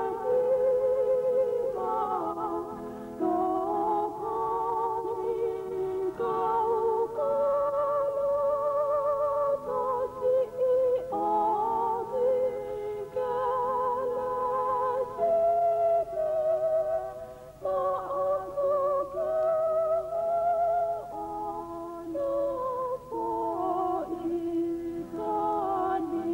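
Organ music: a slow melody of long held notes and chords, with a steady vibrato on every note.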